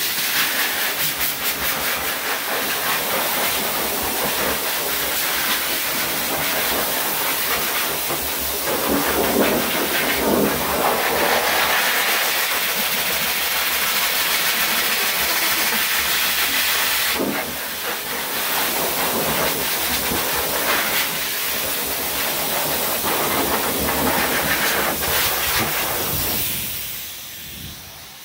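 Forced-air dog grooming dryer blowing air through its wide hose onto a small dog's coat: a loud, steady rushing hiss that shifts a little as the hose is moved. Near the end the dryer is switched off and the hiss dies away.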